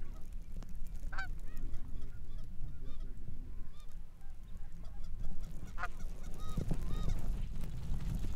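Canada geese honking as they fly in and land over the decoys: scattered single honks, with several in quick succession about six seconds in, over a low rumble.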